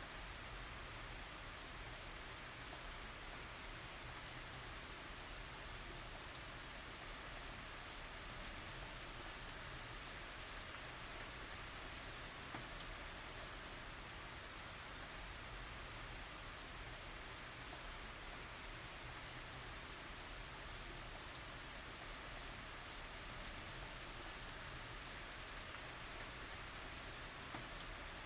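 Steady tropical rain falling, with many individual drops heard as small ticks over an even hiss.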